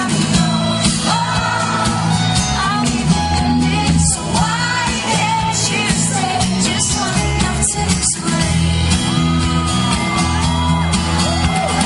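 Live rock band playing a slow song, with the vocal line sung over it and shouts from the crowd, heard through an audience member's recording in a large hall.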